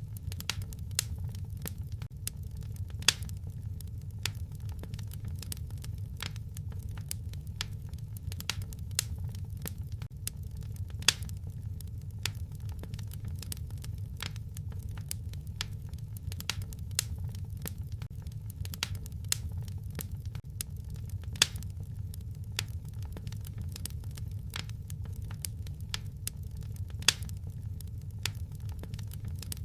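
Wood fire crackling in a fireplace: a steady low rumble with a constant scatter of small crackles and several louder pops.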